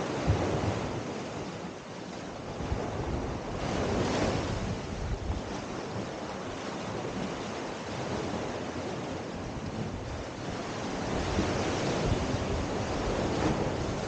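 Small sea waves washing up a sandy beach and drawing back, surging louder about four seconds in and again near the end. Wind rumbles on the microphone underneath.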